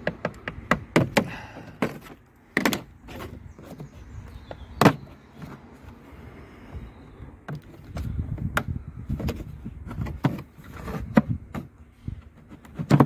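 Scattered clicks and knocks of the plastic grill and clips over a Chrysler 300C's cabin filter housing being handled and unclipped, the sharpest knock about five seconds in.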